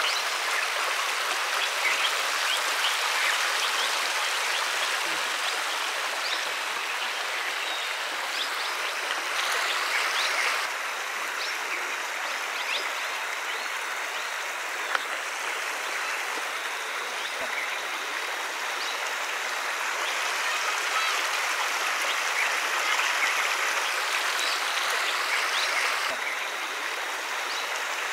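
Shallow river water running over flat rocks: a steady rushing hiss with small trickles and splashes, and one sharp click about halfway through.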